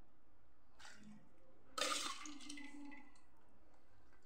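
Wet soaked lentils and rice sliding and being scraped from a steel bowl into a steel mixer-grinder jar, with light metallic clinks of steel on steel. The louder clink comes just under two seconds in.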